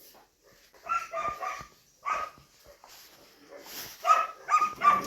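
A dog barking in short, high barks: three quick barks about a second in, a single one at two seconds, and three more close together near the end.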